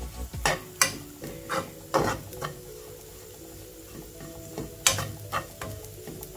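A metal spoon stirring and scraping grated coconut frying with shallots and curry leaves in a nonstick pan, over a soft sizzle. The scraping strokes come irregularly, several in the first two and a half seconds, then a louder one about five seconds in.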